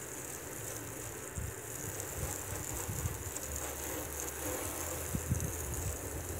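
Water from a hose spraying across a waxed car panel, a steady hiss, rinsing off the cleaner. Low gusts of wind on the microphone come and go.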